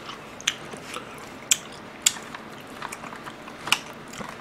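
Close-miked eating sounds: a person chewing food, with a scattering of sharp wet mouth clicks and smacks, four of them louder than the rest.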